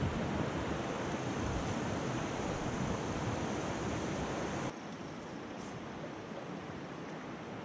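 Rushing river rapids around a kayak: a steady hiss of fast, broken water. About two-thirds of the way through it drops suddenly to a quieter flow.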